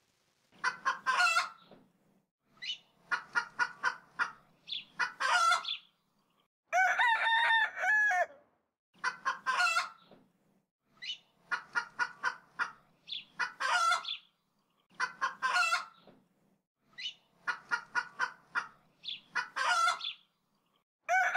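Chicken clucking and cackling in about ten regular bouts, each a quick run of short clucks ending in a longer drawn-out call, with silence between the bouts.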